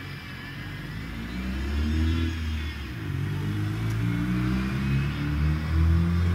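A car engine accelerating, its pitch rising, dropping briefly about three seconds in, then rising again.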